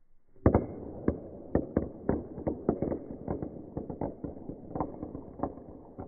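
Two dice thrown onto a wood-plank floor. They clatter, bouncing and rolling in a loud first hit about half a second in, then a run of irregular clicks for about five seconds.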